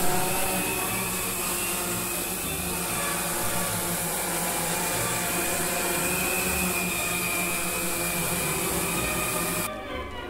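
Hexacopter's six electric motors and propellers running hard in a hover while lifting a 5 kg payload: a steady, loud buzzing drone with a high whine over it. Near the end the noise cuts back sharply as the copter sets down.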